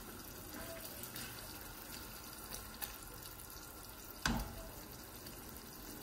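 Tomato and vegetable sauce simmering in a frying pan while a silicone spatula stirs it, a steady low sizzle and scrape with a few faint ticks. One sharp knock comes about four seconds in.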